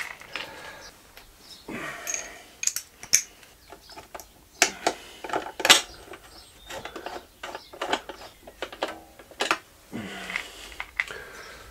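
Irregular clicks and light knocks of a hand screwdriver and plastic parts being handled while fasteners on a motorcycle's plastic air-filter housing are refitted, with brief rustles between them.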